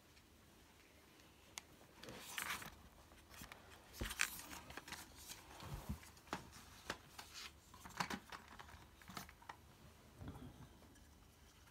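Faint handling noise: scattered small clicks, taps and brief rustles of hands working with small parts on a table, busiest from about two seconds in until shortly before the end.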